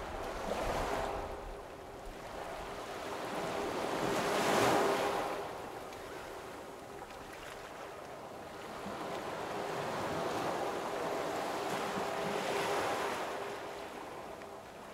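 Waves washing in slow swells: surf-like surges about a second in, around five seconds in, and again near the end, over a faint steady hum.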